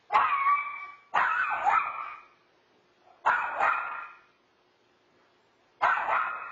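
A dog giving four drawn-out barks, each about a second long. The first two come back to back, and the other two follow after short pauses.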